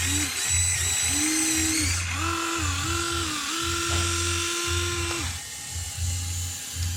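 Small electric motors of radio-controlled construction models whining in short start-stop runs. The pitch steps up and down, with one longer run of about two seconds that stops about five seconds in.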